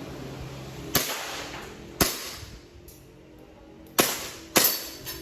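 Airsoft gun firing five sharp single shots, each with a short ringing tail: the first three about a second apart, with a longer gap before the third, and the last two coming quicker near the end. Faint background music runs underneath.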